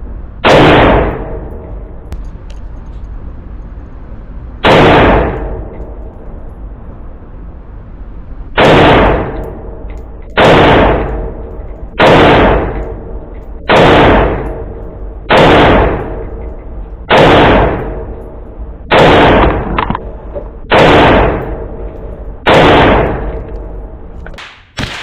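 Great Lakes Firearms GL-15 .223 Wylde AR pistol, with a 7.5-inch barrel and muzzle brake, fired semi-automatically in an indoor range: eleven single shots, the first three about four seconds apart, then eight more at a steady pace of roughly one every 1.8 seconds. Each report rings briefly off the range walls.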